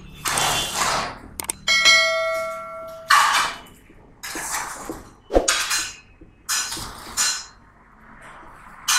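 Marker squeaking and scratching on a whiteboard in a series of short strokes as numbers are written. A bell-like chime from a subscribe-button animation rings for about a second and a half, starting about two seconds in.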